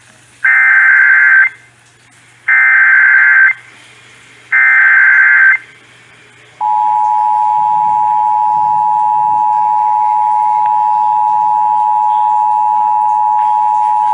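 Emergency Alert System activation tones: three one-second bursts of SAME digital header data, about a second apart, then the steady EAS two-tone attention signal (853 and 960 Hz together) starting about six and a half seconds in and holding.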